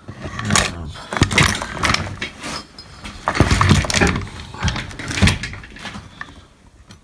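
Metal parts of an opened chain hoist clanking and rattling as they are handled, with a run of irregular knocks and clatter that dies away near the end.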